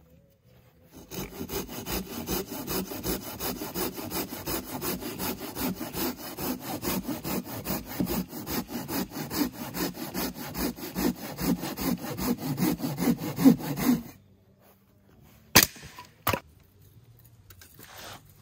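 Hand saw cutting through a dry driftwood log in fast, even back-and-forth strokes, stopping about fourteen seconds in. Two sharp knocks follow shortly after.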